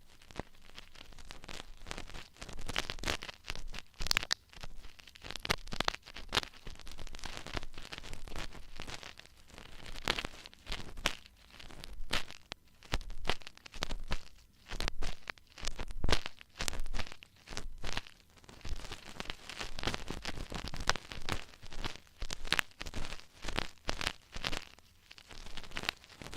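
Ear-cleaning tools scratching and rubbing close against the microphone: a dense, irregular run of short crackling scrapes, several a second.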